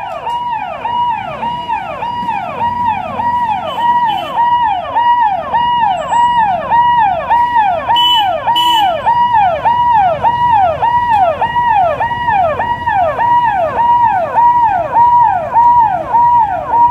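Police vehicle's electronic siren sounding continuously in a fast repeating cycle, about two sweeps a second. Each sweep jumps up in pitch, holds briefly, then slides down.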